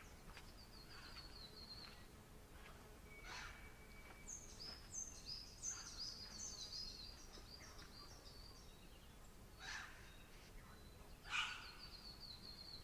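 Wild birds calling in bushland: high trills at the start and end, a run of quick, falling notes through the middle, and a few short, sharp calls, the loudest about eleven seconds in.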